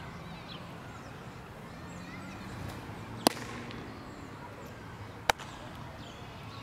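Two sharp leather pops about two seconds apart: a fastball smacking into the catcher's mitt a little past the middle, then the return throw snapping into the pitcher's glove.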